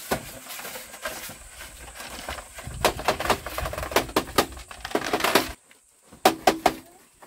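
Cut bamboo tube sections clattering and knocking against one another and the bamboo floor as they are picked up and carried in an armful. About five and a half seconds in, the background noise drops suddenly, then come a few sharp separate knocks.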